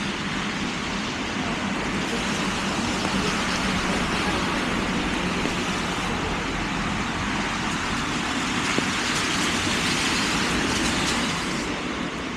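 Traffic hiss on a rain-wet road: the tyres of passing vehicles swish on the wet asphalt, swelling louder through the middle and falling away near the end.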